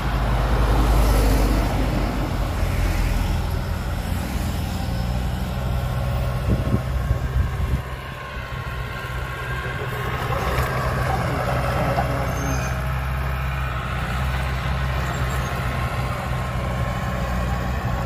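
Heavy diesel engine running steadily, with a few knocks about seven seconds in and a brief dip in level just after.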